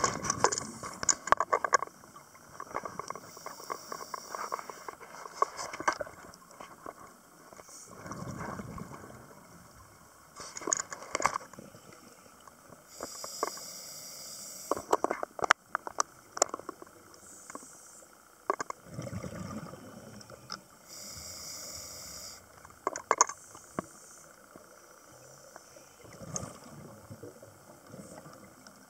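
Scuba regulator breathing underwater: a hissing inhale about every eight to ten seconds, alternating with bubbling, crackling exhalations and scattered clicks.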